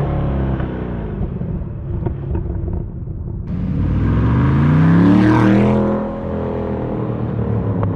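C8 Corvette's 6.2-litre V8 through an aftermarket ArmyTrix exhaust. The engine runs steadily at first. About three and a half seconds in, the car accelerates past: the pitch climbs to its loudest point around five seconds in, then drops as the car goes by.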